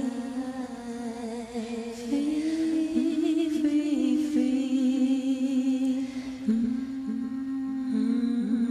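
A woman's voice singing slow, wordless, humming-like held notes, with a slight waver in pitch.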